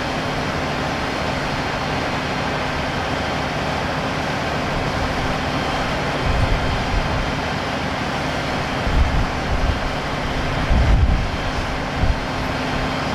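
Steady running of vehicle engines, a constant low hum over an even rush of noise, with a few short low rumbles in the second half.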